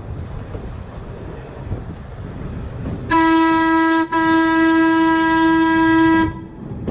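Streetcar air horn sounded in two blasts, a short one about three seconds in and a longer one of about two seconds right after, one steady note, over the low rumble of streetcars rolling on rails.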